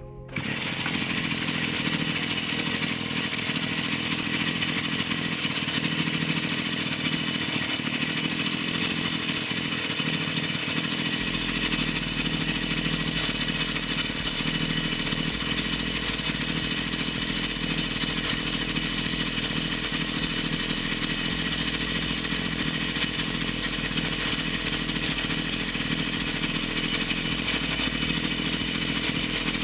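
The rebuilt two-stroke engine of a Honda UMK40 brush cutter, running steadily at about 2,400 rpm.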